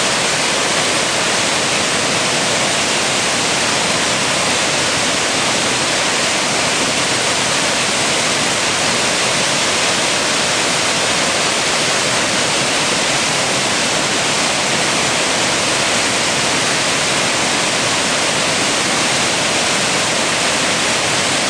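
Floodwater discharging through a dam's open spillway gates: a loud, steady rushing roar of white water and spray that does not change.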